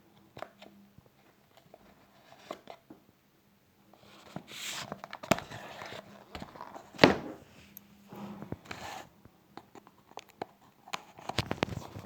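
Packaging being unwrapped and handled: short rustles and tearing of wrapping, with scattered sharp clicks and taps, the loudest a click about seven seconds in.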